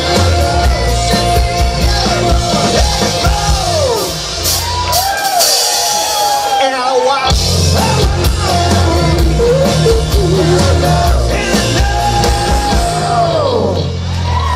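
Live rock band playing on stage: keyboard, bass guitar, electric guitar and drums, with sliding, shouted vocals. About five seconds in the bass and drums drop out for roughly two seconds, then the full band comes back in.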